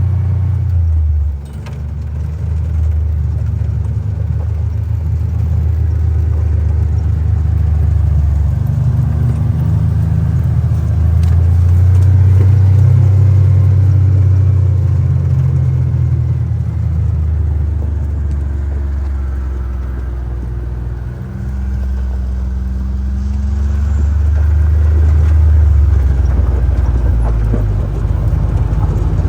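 John Deere Gator utility vehicle's engine running under way, its low note rising and falling as the speed changes, with a brief dip about two-thirds of the way through.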